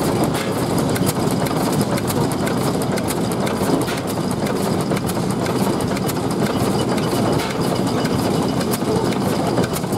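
1924 National petrol/paraffin stationary engine running steadily, with many light clicks over the running.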